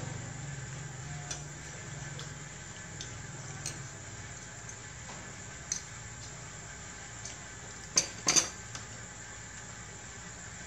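Metal spoons clinking against ceramic plates and bowls during a meal: a few light, scattered clinks, then a sharper cluster of clinks about eight seconds in.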